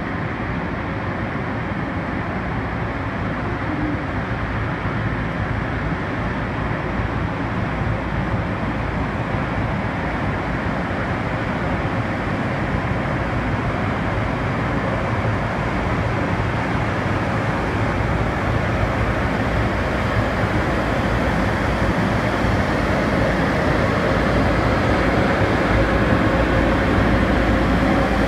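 EP20 electric locomotive hauling a passenger train slowly along the platform, its running noise growing steadily louder as it approaches and passes, with a deeper hum from the locomotive near the end.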